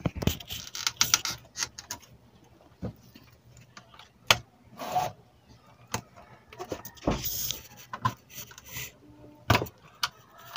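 Hands handling the wiring and circuit board inside an opened CRT television chassis: scattered clicks, taps and brief rustles of wires and plastic.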